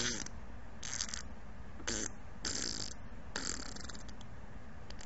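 A string of about five short cartoon fart sound effects. The last two are the longest.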